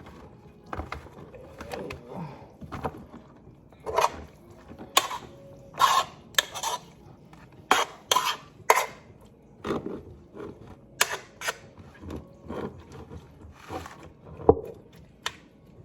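A spoon clinking and scraping against a pot as cooked cabbage is scooped out into a leftovers container: irregular knocks and clatters, the loudest near the end.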